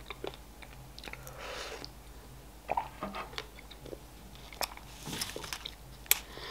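Close-up mouth sounds of a person eating: quiet chewing of cake and a soft sip of tea from a mug, with a few small clicks scattered through.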